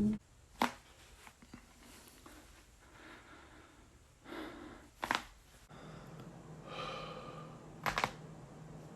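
Joints cracking during chiropractic adjustments: a sharp pop about half a second in, a double pop about five seconds in and another double pop near the end, with soft breathing between.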